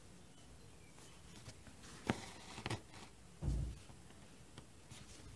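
Cross-stitch needle and floss being worked through the fabric: faint rasps of thread drawn through the weave and a couple of small sharp clicks, with a dull thump about three and a half seconds in.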